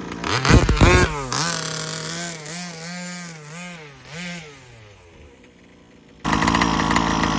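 Baja 5b's small two-stroke gas engine blipped hard about half a second in, then idling with the revs rising and falling a few times before fading out around five seconds in. A loud steady rush of noise starts suddenly about six seconds in.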